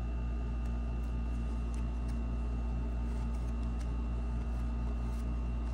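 Steady low mechanical hum of room background noise, with a few faint ticks as trading cards are handled.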